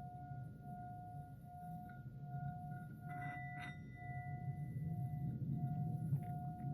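Meditative healing audio: a steady ringing tone that pulses a little more than once a second over a low drone. A brief bright chime rings out about three seconds in.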